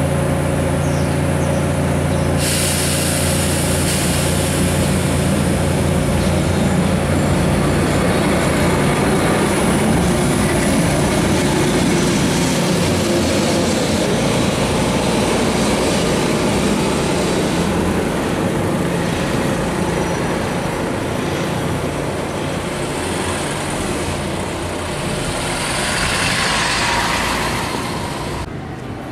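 Vintage Lisbon electric tram moving off along street rails: a steady motor hum with several steady tones that fade over about a dozen seconds as the tram draws away, over the rumble of wheels on the track. Near the end a louder rushing noise rises and cuts off suddenly.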